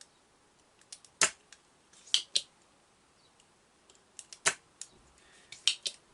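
Spring-loaded solder sucker (desoldering pump), an old, long-unused one, being cocked and fired: a string of sharp snaps and clicks at uneven intervals, the loudest snaps about a second or two apart.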